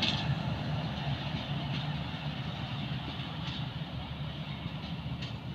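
Passenger train rolling away along the track: a steady low rumble that slowly fades, with a few faint clicks from the wheels.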